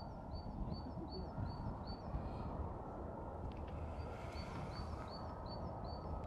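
A small bird repeating a short, high chirp about two or three times a second, in two runs with a pause of about two seconds between them, over a low steady background rumble.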